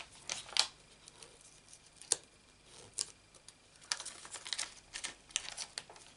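Foam adhesive dimensionals being torn and peeled off their sheet and pressed onto card, giving irregular short crackles and ticks that come more often in the second half.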